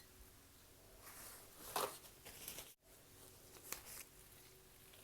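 Faint kitchen handling noises: a few brief, soft rustles and scrapes as ingredients and utensils are moved, with a split-second dead gap near the middle.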